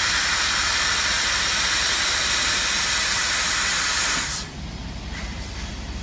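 Fiber laser cutting red copper plate: the assist gas jet from the cutting nozzle hisses loudly and steadily, then cuts off abruptly about four seconds in as the cut finishes, leaving a low machine hum.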